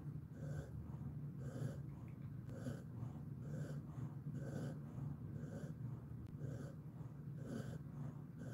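Sleeping Jindo-mix dog breathing softly and evenly through the nose, about one breath a second, over a steady low hum.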